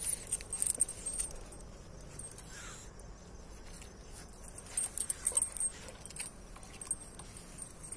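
Dogs play-fighting, with a short whining call a little before three seconds in. The metal chain leash jingles in two spells, near the start and about five seconds in.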